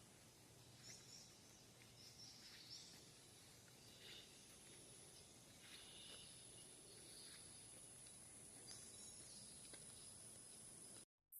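Faint tropical rainforest ambience: scattered short bird chirps, joined about four seconds in by a steady high-pitched insect drone. The sound cuts out abruptly near the end.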